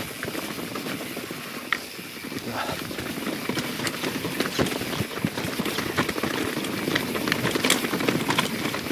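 YT Jeffsy 27 mountain bike rolling fast downhill over leaves, roots and rocks: tyre noise with a constant clatter of knocks and rattles from the bike, growing louder and busier about halfway through.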